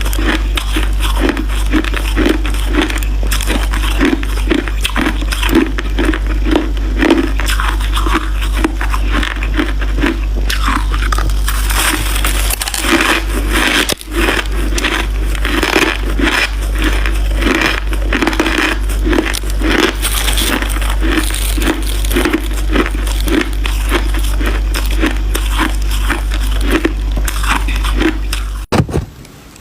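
Crunchy white crushed ice being bitten and chewed: dense, continuous crunching and crackling in a steady chewing rhythm, over a constant low hum. It cuts off abruptly near the end.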